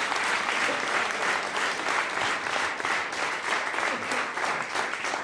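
Audience applauding, a dense, steady clapping that eases slightly near the end.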